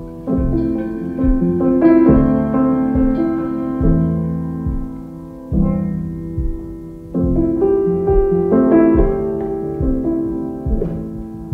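Background piano music: struck notes and chords that ring and fade, changing every second or so at an unhurried pace.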